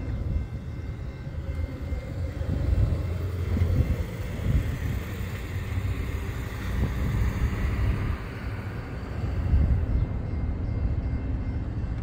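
Road traffic with an uneven low rumble, as a pickup truck drives past around the middle.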